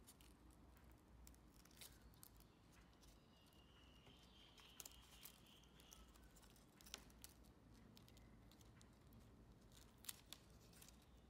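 Faint crackling and rustling of crisp, air-fried pandan leaves being peeled open from pieces of chicken, with a few sharp little clicks scattered through.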